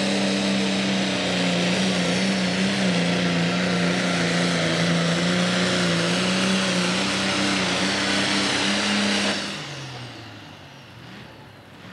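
John Deere Pro Stock pulling tractor's turbocharged diesel engine running flat out under load as it drags the weight-transfer sled, holding a steady pitch with small dips. About nine and a half seconds in the throttle is cut and the engine winds down, its pitch falling, as the pull ends.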